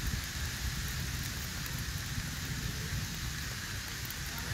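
Volcanic ash and lapilli falling, a steady rain-like patter over a continuous low rumble.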